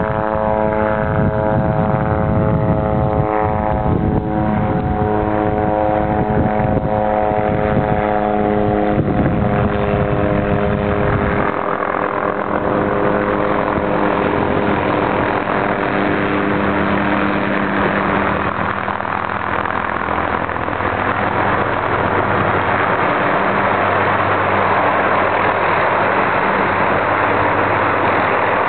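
An engine running steadily with a pitched hum. About eleven seconds in, the deep rumble drops away and a steady rushing noise takes over, with the hum still faintly underneath.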